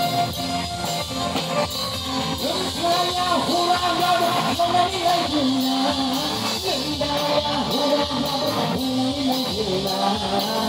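Live amplified band music played through stage loudspeakers, with a male singer carrying the melody into a microphone over a steady drum beat.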